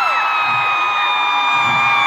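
Arena crowd of concert fans screaming and cheering, with one high-pitched scream held close to the microphone that slides slowly lower in pitch.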